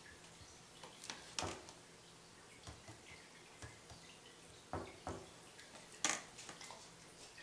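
Scattered light clicks and soft wet taps of a spoon against a plastic container and a dinner plate as cooked yams are spooned out, the loudest tap about six seconds in.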